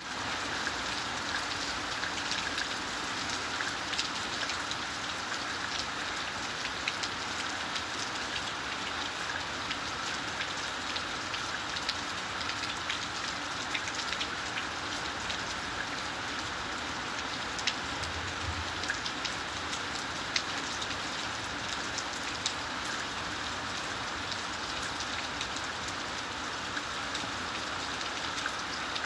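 Steady rain falling, with frequent sharp taps of individual drops hitting a hard surface.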